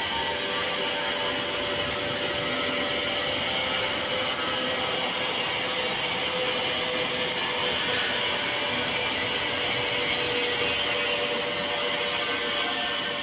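A steady mechanical noise that keeps an even level, with no breaks or pauses.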